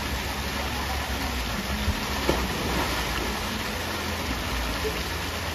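Steady splashing hiss of several water jets from a pirate-ship pool structure's cannons pouring into the pool, with a low rumble under it.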